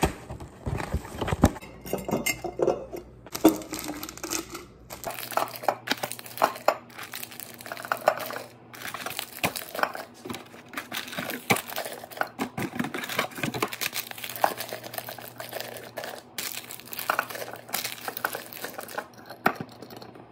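Paper instant-oatmeal packets crinkling and rustling as they are handled out of their cardboard box and packed into a glass jar, in an irregular run of crackles.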